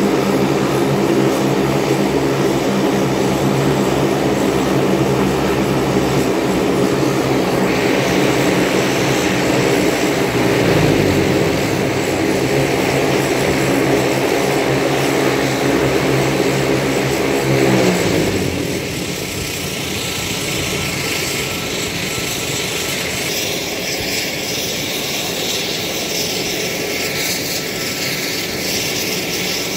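Saab 340 turboprop's engine running at high power during a ground engine test, a loud propeller drone made of several steady tones. About eighteen seconds in the tones slide down in pitch and drop away as power comes back, leaving a quieter steady turbine hiss.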